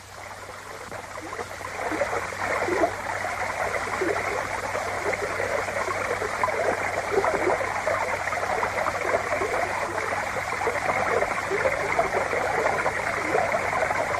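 Water rippling and splashing steadily on a film soundtrack as a woolly rhinoceros swims through a river, fading in over the first couple of seconds.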